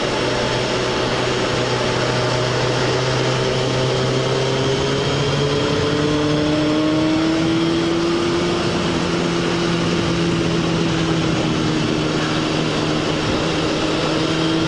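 Suzuki GSX-R sport bike's inline-four engine running under way, with steady wind and road noise; its pitch rises a little from about five seconds in as the bike picks up speed.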